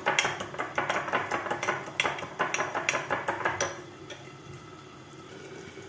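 A metal fork beating eggs in a small glass bowl, clinking quickly and regularly against the glass. The beating stops about two-thirds of the way through, leaving a faint steady hiss.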